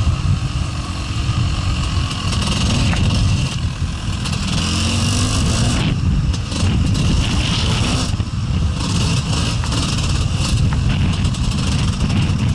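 Gas Gas EC 250 enduro motorcycle engine running under changing throttle, its pitch rising and falling as it revs up and eases off on a rough dirt track.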